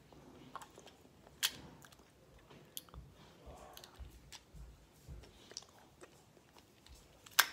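Wet mouth sounds of someone sucking and licking a hard Peeps lollipop, with a few sharp clicks: one about a second and a half in and a louder one near the end.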